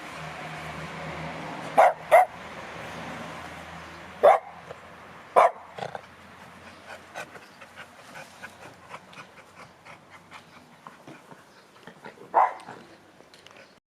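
Dog barking in single sharp barks, five in all: a quick pair about two seconds in, two more a second apart around four to five seconds, and one near the end.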